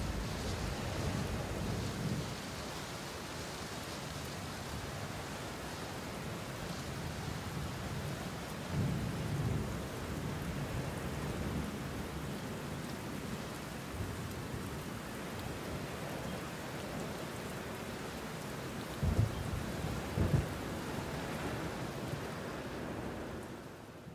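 Steady rain falling, with a few low rumbles and two short low thuds about three quarters of the way through.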